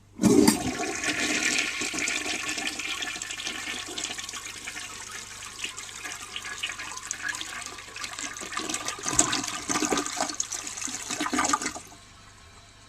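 A 1952 Eljer Duplex toilet flushing a load of ten wads of toilet paper: a sudden rush of water at the start, a steady swirling rush for about twelve seconds with louder surges near the end, then it cuts off abruptly about a second before the end as the bowl clears the paper.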